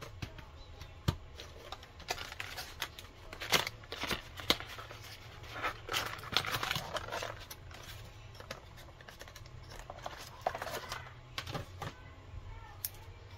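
Handling sounds from a battery swap: a few sharp taps and knocks as a laptop battery and a cardboard box are picked up and set down on the mat, with stretches of rustling as the box is opened and the new battery is slid out of its packaging.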